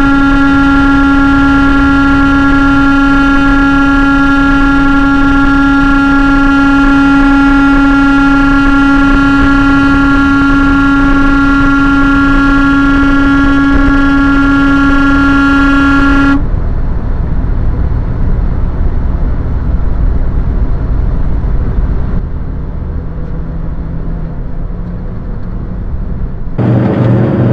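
A vehicle horn held down in one long, unbroken, loud blast over highway road noise, released suddenly about sixteen seconds in. Tyre and engine noise of the moving vehicle carries on, and a deeper steady hum comes in near the end.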